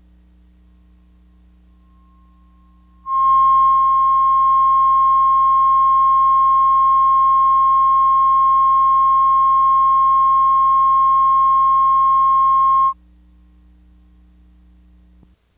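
Videotape line-up tone: a steady sine tone of about 1 kHz, recorded with colour bars at the head of the tape as the audio level reference. It switches on sharply about three seconds in and cuts off abruptly about ten seconds later, over a low steady electrical hum that drops out near the end.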